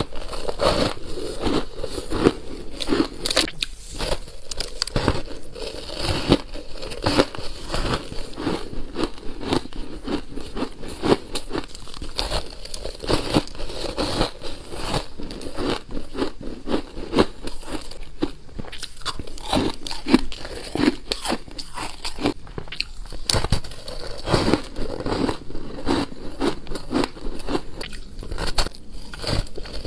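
A person biting and chewing a block of pink-and-white shaved ice, close to the microphone: a steady run of dense, irregular crunches.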